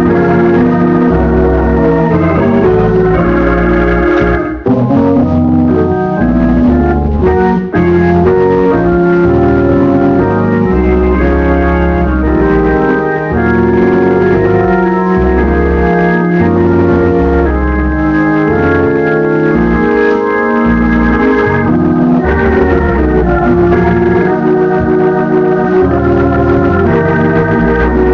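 Gospel music led by an organ, playing sustained chords over a moving bass line, with two brief breaks in the first eight seconds.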